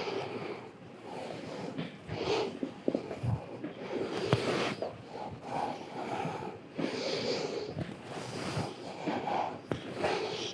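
A person breathing audibly, several breaths in and out about a second or two apart, with light rustling and a few faint clicks.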